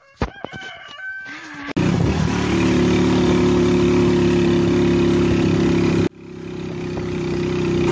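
A vehicle's engine running steadily while riding along a road, heard from on board. It starts abruptly about two seconds in, cuts out suddenly near the six-second mark and swells back in.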